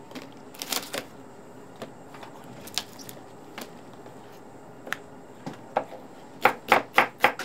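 Kitchen knife cutting large green onions on a wooden cutting board: a few scattered knocks and taps, then, about six seconds in, a quick run of chops at about four a second.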